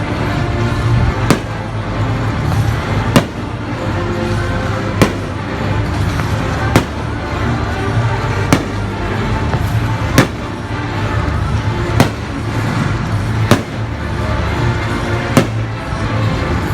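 Fireworks bursting in a steady series, a sharp bang about every two seconds, nine in all, over continuous loud music.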